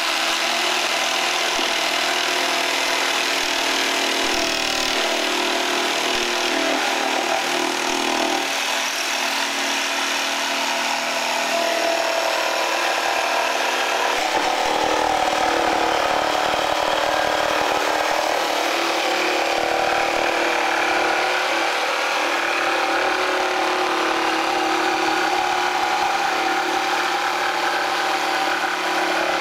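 Corded jigsaw running steadily as its blade saws through a sheet of plywood.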